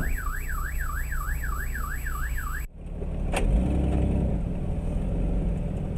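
An electronic alarm tone warbling quickly up and down, about three sweeps a second, cuts off suddenly about two and a half seconds in. After it comes the steady low hum of a car driving, heard from inside the cabin, with one sharp click.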